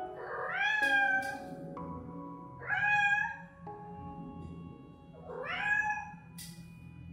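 Kitten meowing three times, each call about a second long and rising in pitch at its start, over background music with sustained tones.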